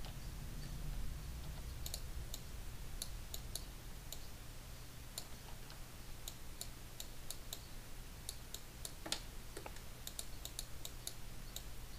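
Scattered light clicks from a computer mouse and keyboard, irregularly spaced, over a faint steady low hum.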